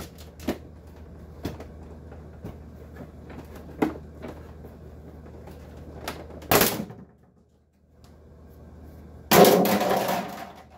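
Scattered clicks and knocks of plastic parts as a dehumidifier's casing is worked loose, then a loud scraping rush of plastic sliding and coming off near the end.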